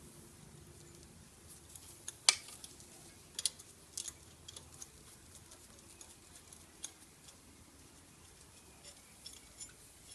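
Scattered light metallic clicks and clinks of hands handling parts and fittings in a car's engine bay, the sharpest about two seconds in, a few more over the next two seconds, then faint ticks.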